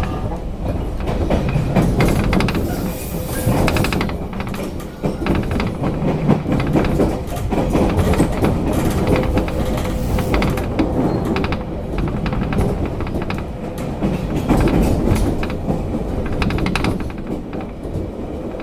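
A JR Kyushu 813 series electric train running, heard inside its motor car: wheel-on-rail noise with a steady hum and many rail-joint clicks.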